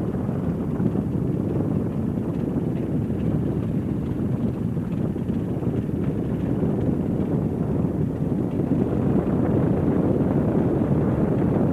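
De Havilland Tiger Moth biplane's four-cylinder inverted inline engine and propeller running steadily as the aircraft rolls along the runway, heard from the open cockpit with wind rushing over the microphone.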